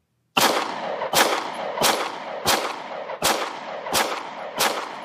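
Hudson H9 9mm pistol firing seven shots in steady succession, about one every 0.7 seconds, each shot followed by a short decaying echo.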